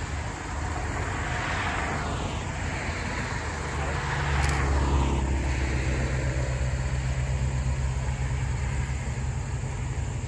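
Diesel locomotives of a freight train running with a steady low drone that comes in about four seconds in and holds. Before and as it builds, a rushing noise falls in pitch twice, like a vehicle going past.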